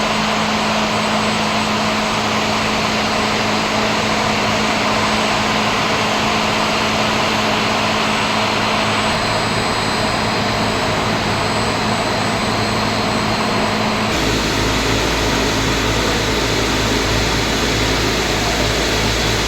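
Steady machine noise: a constant rushing hum with a few held tones. Its character changes abruptly about fourteen seconds in, when a deeper hum takes over.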